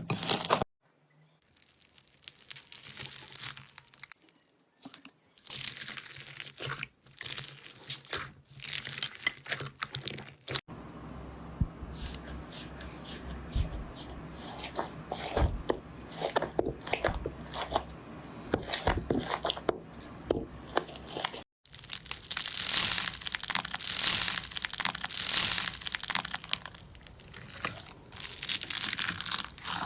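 Slime being squeezed and poked by hand, giving dense crunching and crackling clicks. It comes in three stretches, each cut off abruptly.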